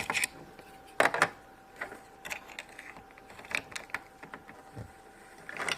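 Irregular small plastic clicks and taps from MagiClip dolls and their clip-on plastic dresses being handled and snapped together, the loudest about a second in, over a faint steady tone.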